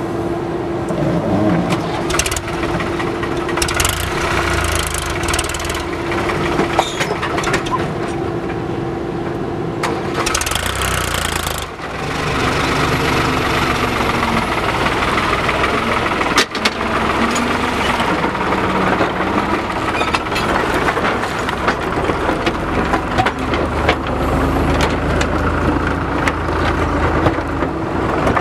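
Diesel engine of a JCB backhoe loader running as it digs and loads, its note steady at first, then dropping and wavering from about twelve seconds in as the load changes. Occasional sharp knocks sound over the engine.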